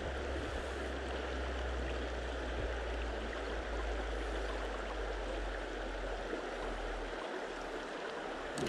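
Shallow river running over a stony bed: a steady, even rush of water.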